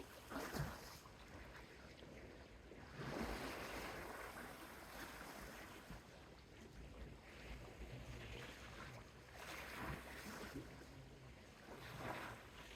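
Soft sea waves washing onto a beach, the rush swelling and falling back in surges a few seconds apart.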